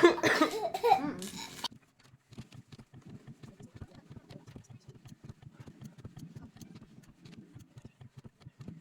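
A young child laughing and squealing loudly, cutting off suddenly about a second and a half in. Faint, rapid soft tapping follows, several taps a second.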